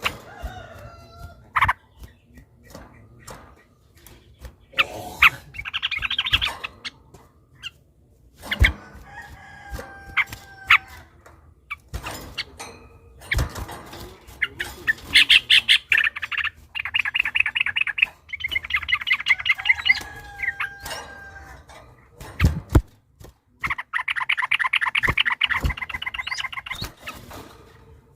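Yellow-vented bulbuls (trucukan) in rapid, chattering song, with several bursts of fast repeated notes each lasting a few seconds. Short calls and sharp clicks come in between.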